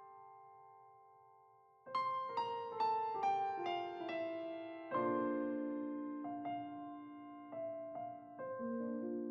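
Solo piano background music: a chord fades out, then a descending run of single notes falls about two seconds in, and sustained low chords follow.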